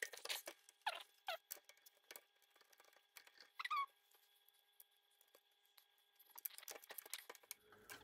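Faint clicks and a few short squeaks falling in pitch as metal steering parts of a lawn tractor are handled and fitted; the loudest squeak comes about four seconds in, and a run of faint ticks follows near the end.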